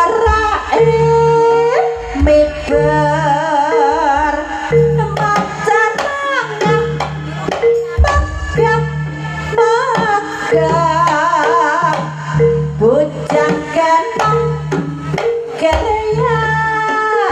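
Live East Javanese jaranan music: drums beating under singing with a wavering melody, over a repeated held note.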